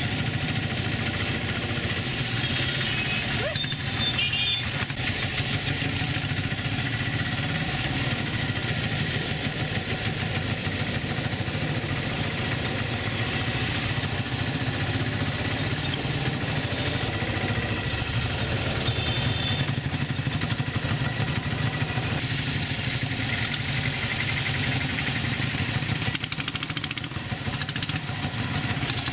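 Auto-rickshaw (tuk-tuk) engine running steadily as the vehicle drives, heard from the passenger seat.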